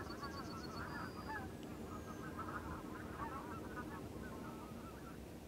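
A flock of wild geese flying in skeins, many birds honking at once. The calling thins out and stops near the end.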